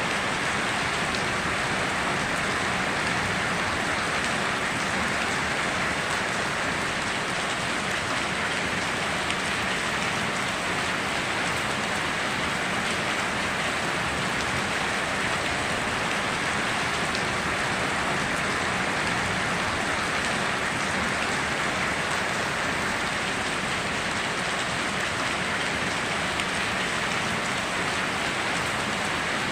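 Steady heavy rain falling on foliage and surfaces, an even unbroken hiss with no thunder.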